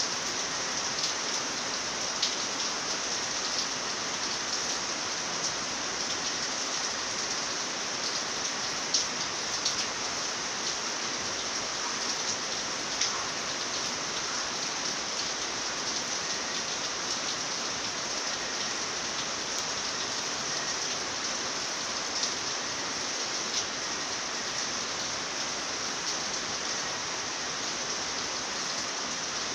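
Steady rain at night: a dense, even hiss of falling rain, with scattered sharper drops ticking through it.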